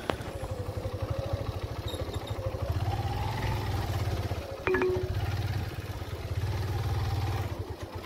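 Motor scooter's small engine running at low speed as it is ridden slowly, its note swelling louder twice. A short sharp click comes about halfway through.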